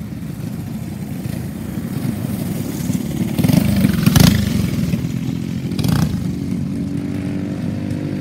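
Go-kart engine running, growing louder around four seconds in, with two short bursts of rushing noise. Near the end it settles to a steady engine tone.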